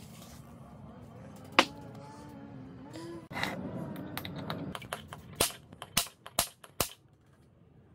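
Spring-loaded automatic center punch firing against the steel end of a used car oil filter: four sharp metallic snaps in quick succession in the second half, each one a punch mark. Earlier there is a single, louder sharp click and some handling noise.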